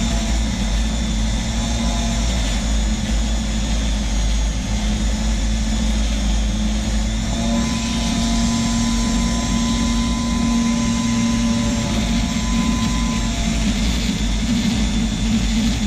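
Flexible-shaft rotary tool running steadily, a small sanding drum grinding down the repair patch on an antique revolver's grip panel.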